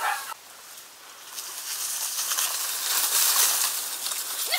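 Leaves and grass rustling and brushing as someone pushes through dense vegetation: a steady hiss that builds from about a second in and is loudest near the end.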